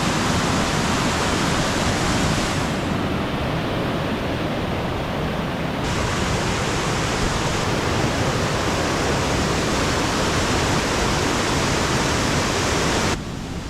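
Ellis River rushing steadily in high water, swollen by rain and snowmelt. The rush drops suddenly quieter near the end.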